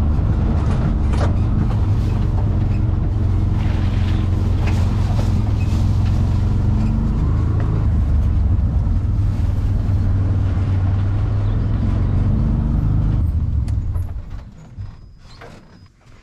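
Side-by-side UTV engine running steadily with a low drone while driving along a dirt trail. The engine sound falls away near the end.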